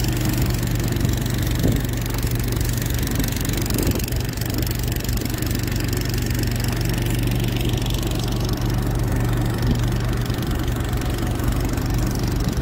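Small wooden riverboat's engine running steadily under way, a constant low drone with a hiss over it.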